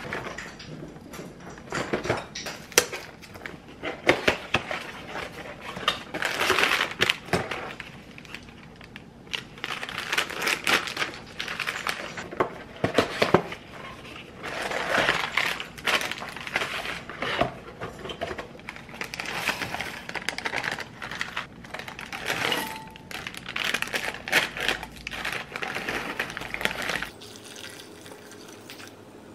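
Cardboard boxes and plastic packets being handled and opened on a countertop: irregular rustling and crinkling mixed with sharp clicks and taps, dying down near the end.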